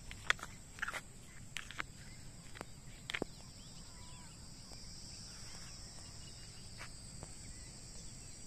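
Steady high-pitched chirring of insects in the open countryside, with a few sharp clicks in the first three seconds.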